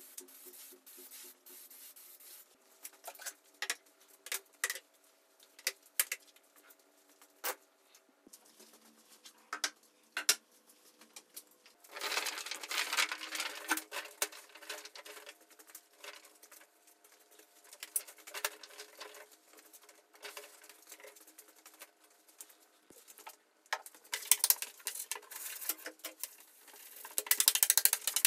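Aerosol can of spray contact glue hissing steadily, stopping about two seconds in. Then scattered taps and a crackling rustle as a thin walnut veneer sheet is handled and laid onto the glued MDF, and near the end a block rubbing hard over the veneer to press it onto the contact glue.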